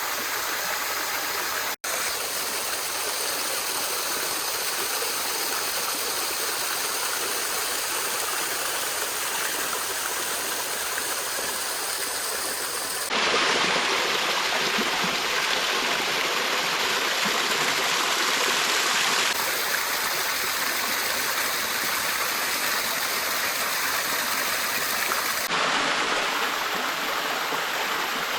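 Steady rush of flowing stream water. It drops out for an instant near the start and changes tone abruptly three times.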